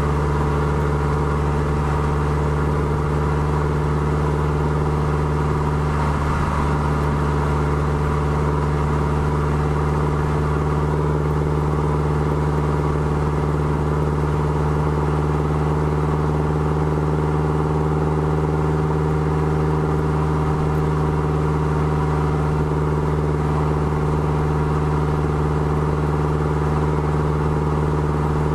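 Exhaust of a 2013 Subaru WRX's turbocharged flat-four, running through equal-length headers and a Maddad turboback exhaust, idling steadily at the tailpipes.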